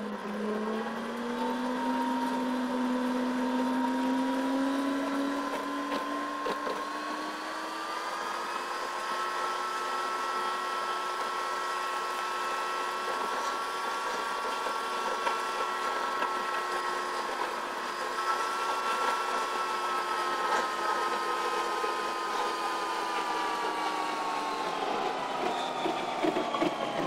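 Car running on the road, its engine and drivetrain hum rising in pitch over the first several seconds as it gathers speed, holding steady, then falling near the end as it slows.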